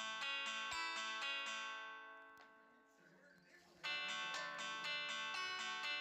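Background music, a plucked guitar tune, which fades out about two seconds in and starts again suddenly just before four seconds.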